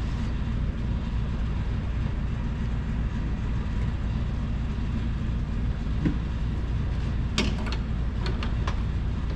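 Steady low hum throughout, with one sharp click about six seconds in and a quick cluster of sharp plastic clicks and snaps between seven and nine seconds in as an interior trim panel is fitted into place.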